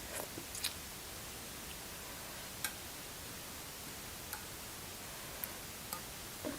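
Close-miked eating sounds: a handful of small, sharp clicks and smacks at uneven intervals over a steady hiss.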